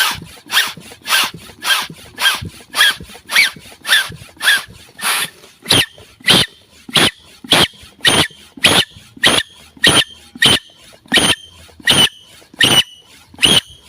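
Hand air pump being worked steadily, about two strokes a second, forcing air into a balloon buried in sand. Each stroke is a rasping puff, and from about halfway on each also carries a squeaky whistle.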